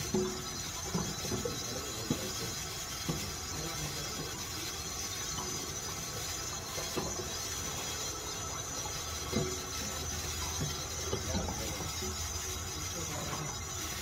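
Household items being handled and set down on a kitchen counter: scattered light knocks and clunks, about one every second or two, over a steady background hiss.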